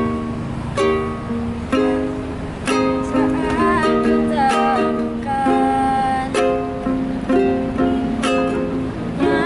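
Ukulele strummed in chords, one strum about every second.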